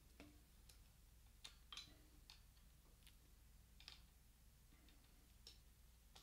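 Faint, scattered small clicks from a Shimano BR-R451 front caliper brake and its cable being handled, with the cable loosened for adjustment.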